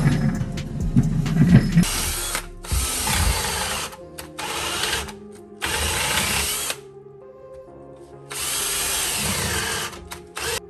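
Cordless drill running in about five short bursts of roughly a second each, drilling at the rear differential mount bushing under the car.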